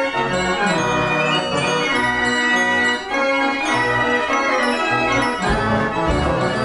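A Page & Howard fairground organ, built in 1992, playing a tune on its pipes: held pipe chords over a stepping bass line, with a brief dip about three seconds in.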